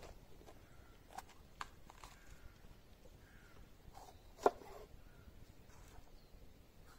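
Kitchen knife cutting bell peppers on a wooden cutting board: a few sparse, sharp knocks of the blade meeting the board, the loudest about four and a half seconds in.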